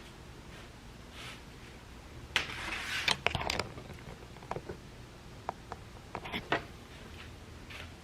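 Rustling of fabric being handled for a little over a second, then a few scattered light clicks and taps.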